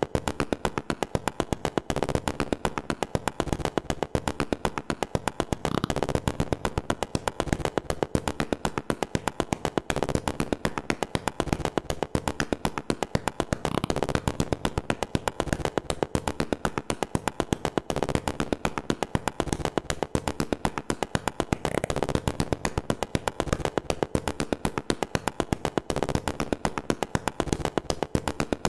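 Background music with a fast, steady percussive beat: sharp ticks about four times a second that never let up.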